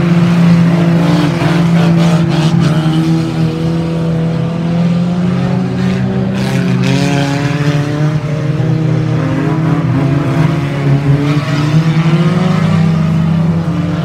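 Several unlimited banger race cars' engines running hard around the track, their pitches rising and falling as they accelerate and pass, with noisier stretches a couple of times.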